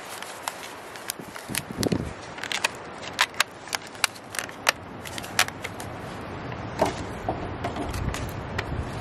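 Thin black plastic nursery pot crackling and clicking as gloved hands squeeze and handle it to work flowers out for planting: a quick run of sharp, irregular clicks for the first half, then quieter.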